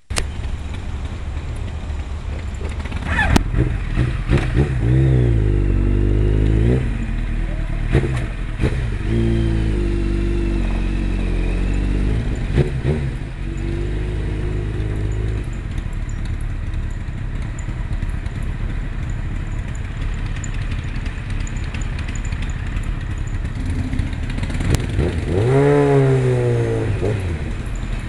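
Motorcycle engine running at low speed, its revs rising and falling several times, with a bigger rev-up and drop near the end.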